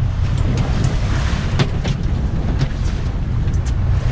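Steady low rumble of wind and water aboard a twin-outboard center-console boat at sea, with a few sharp knocks and taps from the deck.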